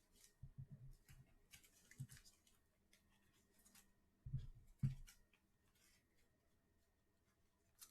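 Faint handling sounds at a desk: a few soft low thumps, the loudest pair about four and a half to five seconds in, among light clicks and rustles.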